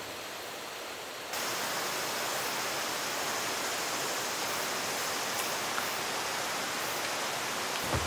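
Steady rush of a nearby mountain stream, an even hiss of flowing water that gets a little louder about a second in.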